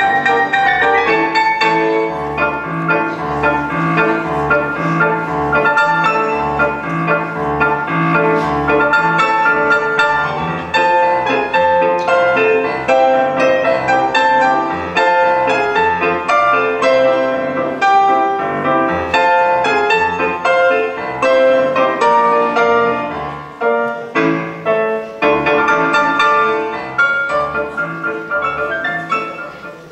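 Piano music, a busy run of notes over a low bass line, dying away near the end.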